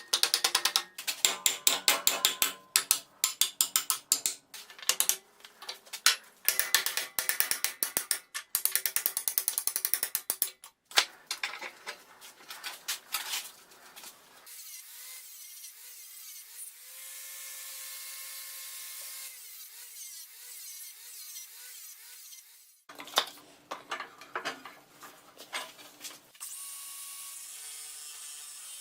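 Rapid metallic ratchet clicking, coming in stretches through roughly the first half and again briefly near the end, with a quieter steady whir in between.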